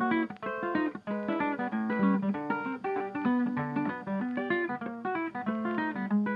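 Lively instrumental background music: a quick run of short plucked notes over a bouncing bass line.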